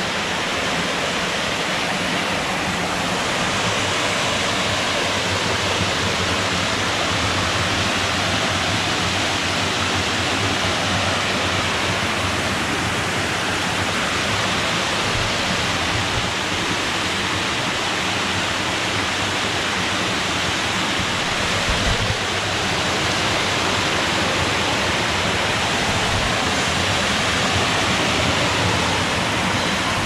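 Small stepped waterfall cascading over rocks: a steady, even rush of falling water, with a brief low bump about twenty-two seconds in.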